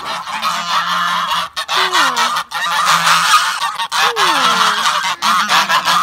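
A flock of Sebastopol geese honking loudly and continuously, several calling over one another, with a couple of lower drawn-out falling calls among them.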